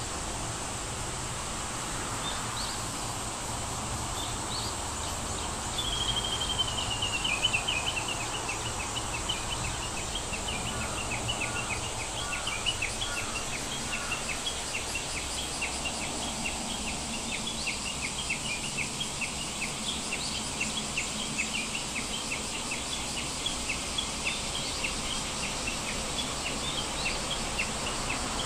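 Birds chirping over steady background hiss: a falling trill about six seconds in, then short high chirps repeating about twice a second.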